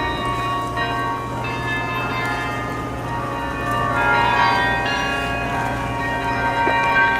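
The 47-bell carillon of the Bruges Belfry playing a tune: bell notes struck one after another, each ringing on under the next. It grows louder about halfway through.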